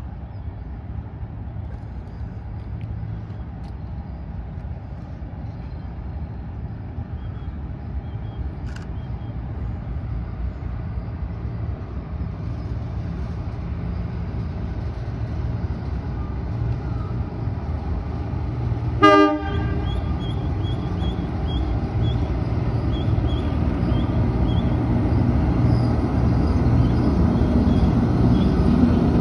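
A heritage passenger train, led by a diesel locomotive, rumbles closer across a steel trestle bridge, growing steadily louder. About two-thirds of the way through, one short toot of a horn or whistle cuts in and is the loudest sound.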